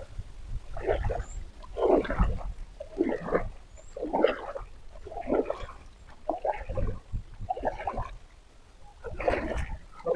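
Paddle strokes in pond water, a splash and gurgle about once a second, as a small bottle boat is paddled along. Faint bird chirps sound now and then.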